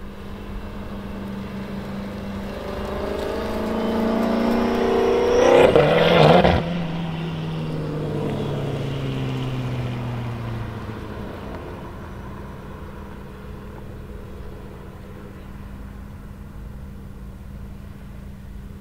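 Tuned BMW M6 F13's 4.4-litre twin-turbo V8, 812 hp in Stage 2+ form, revving up hard as it drives past. The note climbs for a few seconds and peaks loudest about six seconds in, then drops in pitch and fades as the car pulls away. A steady low hum runs underneath throughout.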